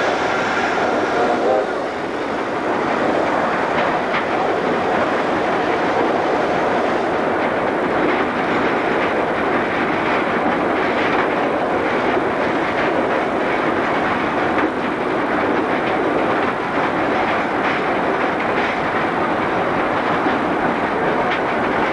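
Cab noise of North British-built Victorian Railways R class 4-6-4 steam locomotive R 707 running under way: a steady, loud din of the locomotive working and the train rolling on the track, heard inside the cab, with faint scattered clicks.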